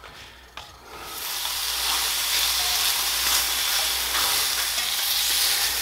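Sliced mushrooms frying in a cast-iron skillet: after a quiet start and one light click, a steady sizzle sets in about a second in and holds.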